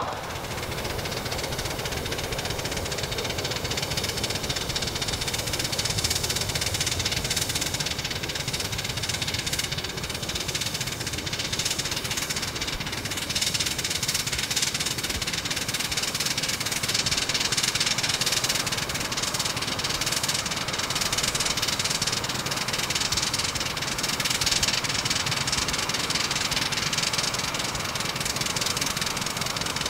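Allen Models Fitchburg Northern, a 7.5-inch gauge live steam 2-6-0 locomotive, running steadily under way, its exhaust beats coming in a fast, even rhythm.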